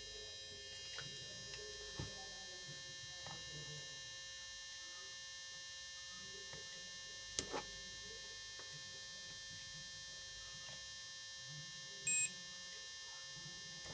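Digital multimeter in continuity mode giving one short beep about 12 seconds in as its probes bridge the drum inductor coil: the coil has continuity and is good. Before it, a few faint clicks of the probe tips touching the circuit board.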